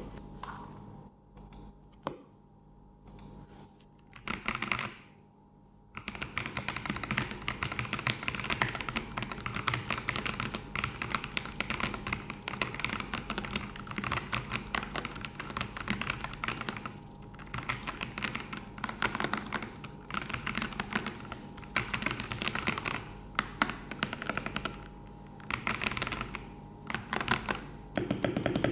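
Mechanical keyboard with stock, unlubricated Fantasy Virus switches and Akko ASA-profile keycaps on an MK68 kit being typed on. A few single keystrokes come first, then fast continuous typing from about six seconds in, with short pauses.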